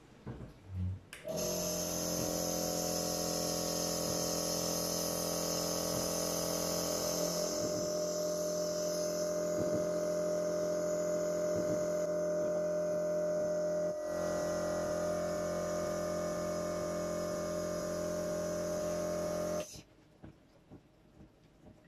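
Medisana IN 500 compressor nebulizer running: its electric compressor switches on about a second in and runs with a steady hum, then cuts off suddenly near the end.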